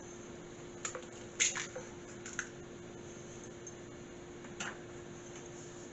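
An egg being opened into a mixing bowl of flour and pumpkin: a soft squish and a few light clicks and taps as the shell is handled, over a faint steady hum.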